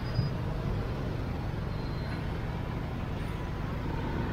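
Street traffic in a slow jam of motorbikes, tuk-tuks and cars: a steady low engine rumble.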